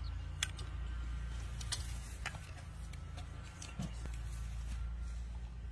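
A snake hook tapping and knocking with a few sharp, separate clicks against concrete and an air-conditioner unit's casing, over a steady low hum.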